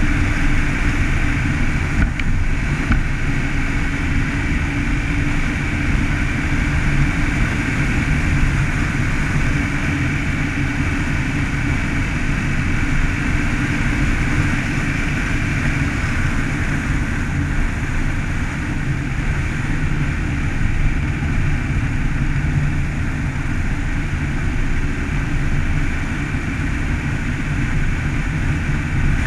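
Car driving steadily along a snow-packed road: continuous engine and tyre noise, with no change in speed.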